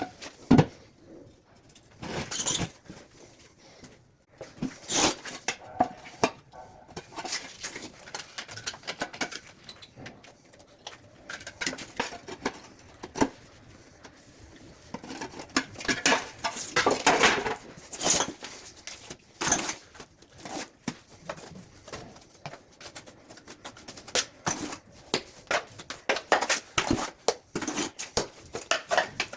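Hand tools knocking, clinking and scraping against ceramic tile in irregular bursts during tile repair work.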